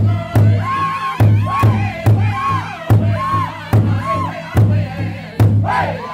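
A powwow drum group: several men strike one large shared drum with beaters in a steady beat, about two to three strikes a second, while singing together in high, strong voices.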